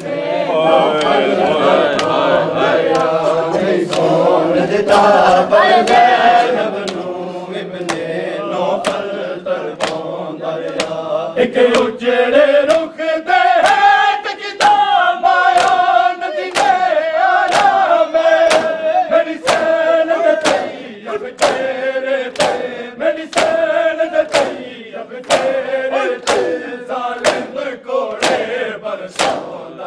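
A group of mourners chants a noha in unison, with rhythmic matam: sharp chest-beating slaps a little more than once a second keeping time under the singing.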